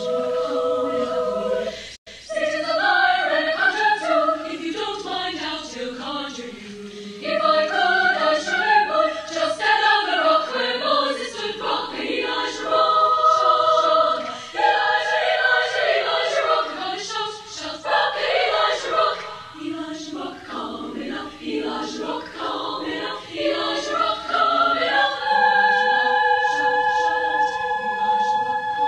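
High school choir singing in parts, without accompaniment. A held chord breaks off about two seconds in and the singing starts again, ending on long held chords.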